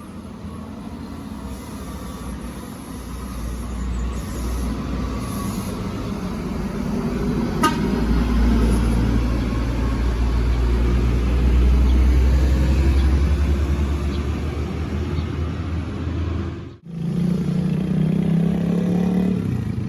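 Intercity bus's diesel engine rumbling, growing louder as it comes in and passes close, then easing off, with a single sharp click partway through. After an abrupt break near the end, a steadier low drone.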